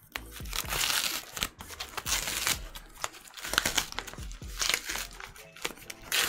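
Cardboard record mailer being worked open by hand: the stiff flaps scrape and crinkle in several irregular bursts.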